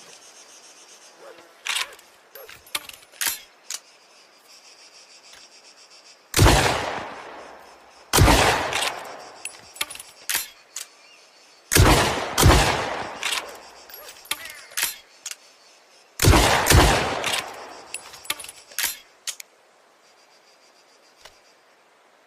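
Sawed-off double-barrel shotgun (lupara) firing: six loud shots in three pairs, each shot ringing off for about a second. Sharp metallic clicks of the gun being handled come in the first few seconds and between the pairs.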